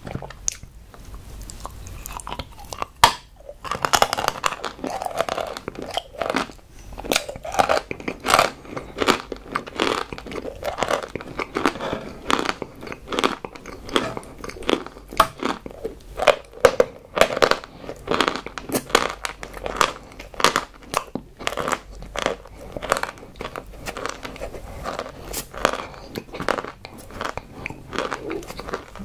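Close-miked crunching and chewing of a hard, crumbly white chalk-like chunk: a steady run of crisp crunches with a loud crunch about three seconds in.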